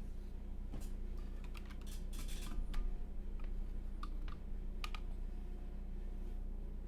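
Scattered sharp plastic clicks and clacks of a mechanical keyboard and its cable being handled, a quick cluster about two seconds in and single clicks near four and five seconds, over a steady low hum.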